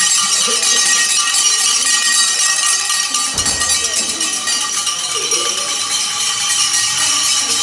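A bell shaken nonstop, a fast, steady metallic ringing that fills the room, with a group's voices faint underneath.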